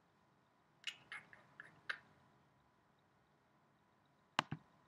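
Quiet computer keyboard and mouse clicks: a few soft taps about a second in, then a sharp double click near the end.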